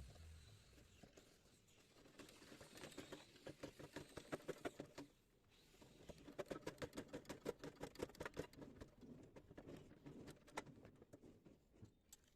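Rapid light clicking, several clicks a second, in two runs broken by a short pause about halfway through.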